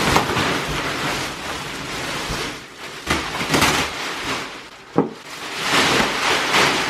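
Plastic wrapping of a compressed memory-foam mattress crinkling and tearing as it is cut open and pulled away. There is a sharp knock about five seconds in.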